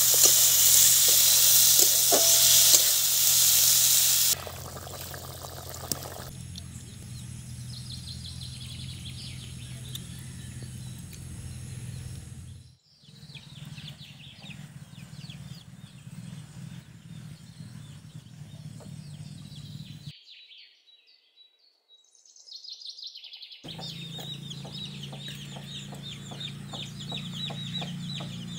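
Meat sizzling loudly as it fries in a pan for about four seconds, then a quieter outdoor village ambience of birds chirping, with chickens clucking near the end. The sound drops out briefly twice along the way.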